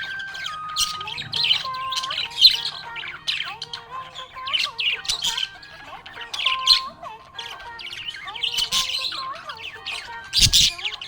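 Budgerigars chirping and squawking in quick, busy runs of short high calls, over a background music melody. A brief low thump near the end.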